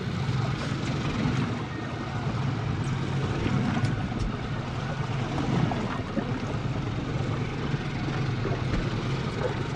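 Steady low hum of twin Suzuki 150 four-stroke outboard motors idling.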